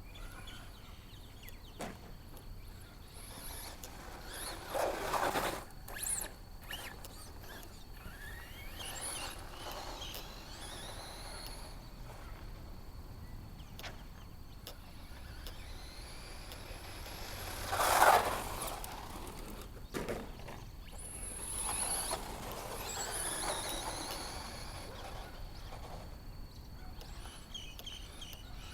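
HPI Maxxis Blitz RC truck's brushless electric motor whining up and down in pitch as the truck speeds up and slows, with several sharp knocks of the truck landing or crashing. The loudest burst comes about eighteen seconds in.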